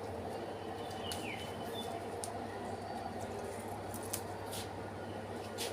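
Steady background hum and noise with a small bird chirping briefly, a quick falling note about a second in, and scattered faint clicks.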